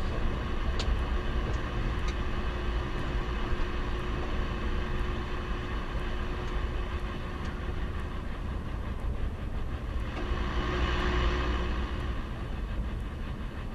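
Steady running and road noise of a vehicle riding along a road, swelling for a couple of seconds toward the end.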